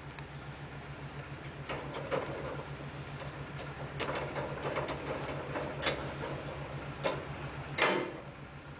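Scattered sharp metal clicks and knocks as the outrigger stabiliser legs of a single-mast aerial work platform are handled and adjusted, over a steady low hum.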